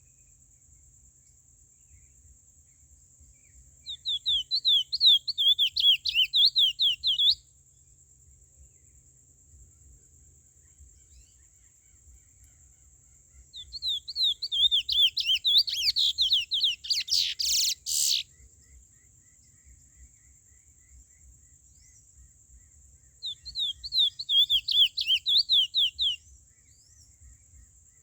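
A curió (chestnut-bellied seed-finch) singing three phrases of rapid, repeated whistled notes, each lasting three to four seconds, about ten seconds apart. The second phrase ends in a short harsh burst.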